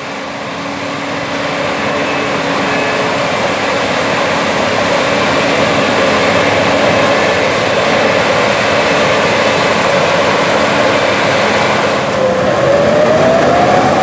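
A Gleaner S77 combine's 370 hp diesel engine running under way, getting louder over the first couple of seconds as it comes close and then holding steady. Near the end a whine dips and then rises in pitch as the combine pulls into the corn to start harvesting.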